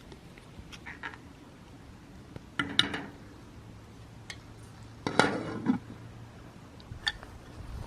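Pots, dishes and utensils clinking and clattering in a few short bunches; the two loudest come about three and five seconds in.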